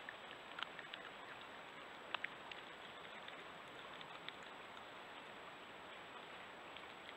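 Steady hiss of a Browning Recon Force Edge trail camera's microphone, with a faint thin whine high above it and a few scattered faint sharp clicks.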